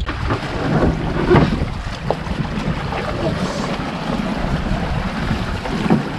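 Wind buffeting the microphone over the wash of the sea around a small boat: a steady, rushing noise.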